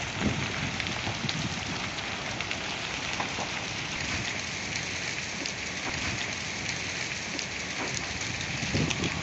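Large fire in burning, collapsed buildings crackling: a steady hiss full of scattered small pops and snaps, with a brief louder low thud near the end.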